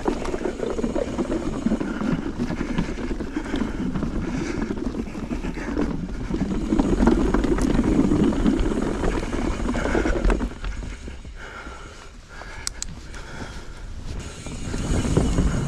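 Knolly mountain bike rolling fast over forest singletrack: tyre noise and drivetrain rattle, growing into a louder clatter over a long wooden plank boardwalk. About ten seconds in it drops suddenly to a softer rolling on dirt trail, then builds again near the end.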